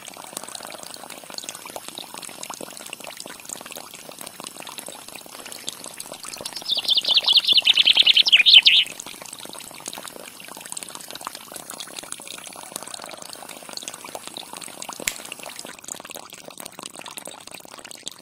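Thin stream of water pouring from a small electric pump's pipe into a shallow muddy pool: a steady splashing trickle. About seven seconds in, a loud, high, rapid trill lasts about two seconds.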